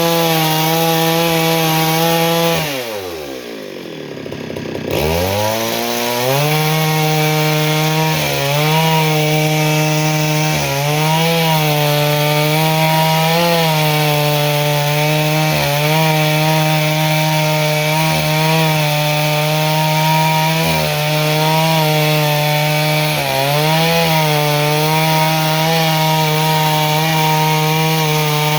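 Two-stroke chainsaw engine running at high revs. The revs drop steeply about three seconds in and climb back a couple of seconds later, then hold high with brief dips every two to three seconds.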